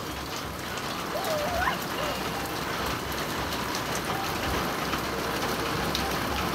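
Steady rain falling on a wet concrete street and puddles, an even hiss, with one short voice sound about a second and a half in.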